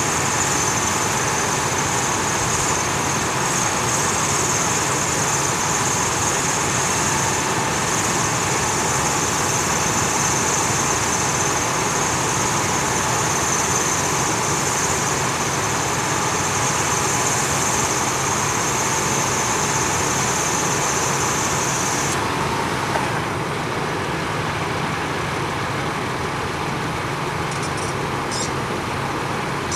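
Engine-driven hydraulic power unit of a rail puller running steadily with a low hum, over a loud high-pitched buzz that stops abruptly about three quarters of the way through. A few short, sharp clicks come near the end.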